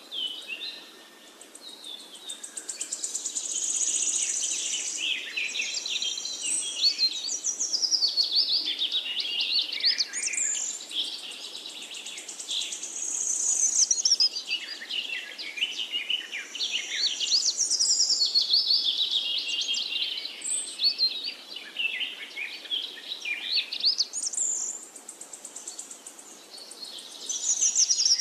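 Birdsong: several birds chirping and trilling in quick, high phrases that swell and fade every few seconds.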